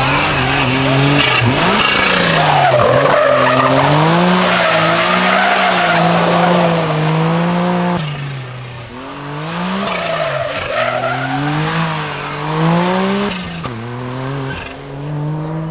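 Suzuki Cappuccino's small turbocharged three-cylinder engine revving up and dropping back again and again as it is driven hard through tight turns, with tyres squealing, strongest in the first half.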